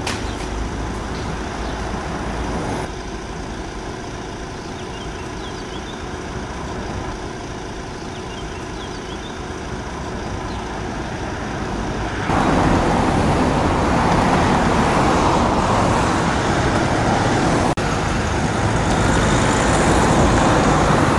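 Steady road traffic noise with vehicles going by. It shifts abruptly twice and is louder from about twelve seconds in.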